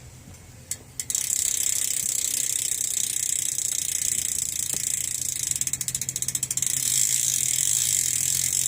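Stock rear cassette hub of a Fit BMX bike freewheeling: after a single click, a fast, continuous run of ratcheting pawl clicks starts about a second in and keeps going.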